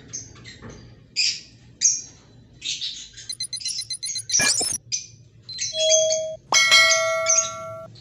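Lovebirds chirping in short, high calls. Over them, a subscribe-button sound effect: a quick sweep about four and a half seconds in, a short steady tone, then a ringing bell-like chime of several tones near the end.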